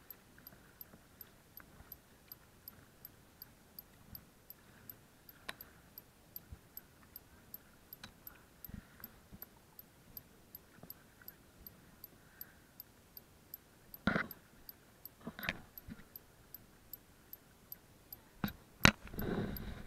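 Faint, even ticking about twice a second, with a few louder splashes of a kayak paddle dipping into the sea in the last six seconds.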